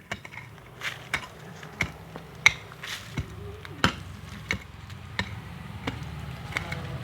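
A digging tool chopping into soil again and again, about one stroke every two-thirds of a second, over a steady low hum.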